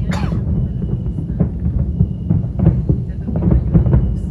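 Distant aerial firework shells bursting in quick succession: a continuous booming rumble with sharp cracks on top.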